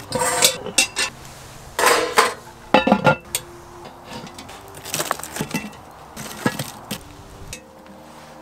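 Cast-iron Dutch oven lid clanking and clinking against the pot and a metal lid lifter, in about six short bursts of clatter. Faint background music with steady tones runs underneath.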